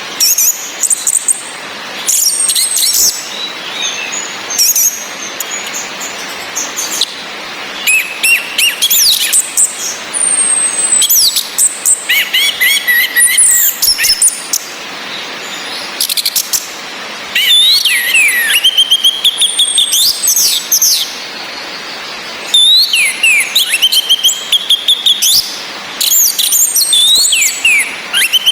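Orange-headed thrushes calling and singing: phrases of high whistles, sweeping notes and quick trills with short pauses between them, over a steady hiss of rain.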